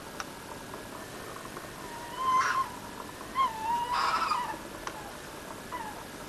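Drawn-out, wavering animal cries: one starts about two seconds in and swells into a loud, harsh cry, and a longer one follows about a second later. A short call comes near the end.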